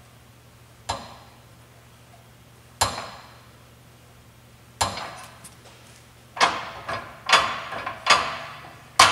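Rebuilt parallel linkage arms of a John Deere planter row unit knocking metal on metal as the unit is lifted and let down by hand: single sharp clanks about two seconds apart, then quicker and louder ones near the end. There is no second clank on each lift because the new flange bushings leave no slop in the linkage.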